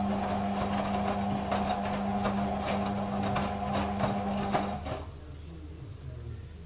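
Hotpoint WM31 front-loading washing machine in a fast tumble: a steady motor hum with the wet laundry knocking and swishing in the drum. About five seconds in the motor cuts off and the drum stops, leaving a faint low rumble.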